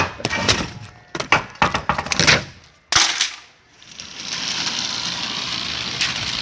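Homemade saw machine, a used meat-cutting saw blade driven by a washing-machine motor, cutting into a plastic computer keyboard: a quick run of sharp plastic cracks and snaps for about three seconds, ending in one sharp crack. After that a steady hiss.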